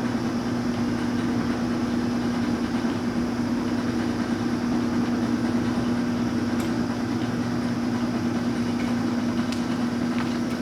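LeBlond Regal engine lathe running with its carriage on power feed: a steady motor and gearbox hum with a constant tone, and a couple of faint clicks in the second half. It runs smoothly, in working order.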